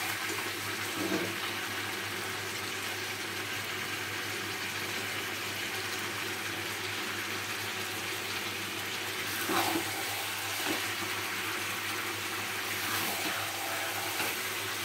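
Chicken curry sizzling steadily in a pan on a gas burner while it is stirred with a wooden spatula, with a brief spatula scrape now and then. The meat has let out a lot of water and the oil is starting to separate: the slow-frying (kosha) stage.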